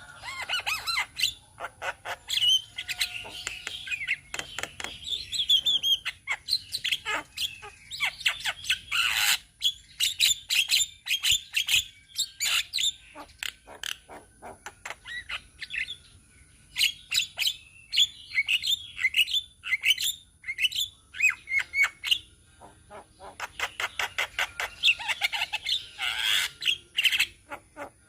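A group of Javan mynas calling together: fast runs of short, harsh clicks, squawks and chattering notes, with a couple of brief lulls.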